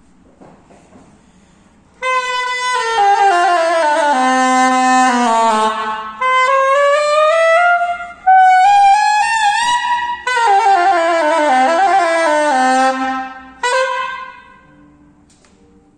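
Tárogató in B-flat, a wooden single-reed woodwind, playing a solo phrase that starts about two seconds in: a falling run of notes, a rising line into a held note with vibrato, then another falling run and a short final note that rings out.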